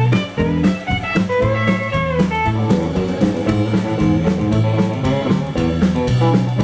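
Live band playing an instrumental passage: electric guitar and fiddle over a steady beat, with one long sliding note held about a second and a half in.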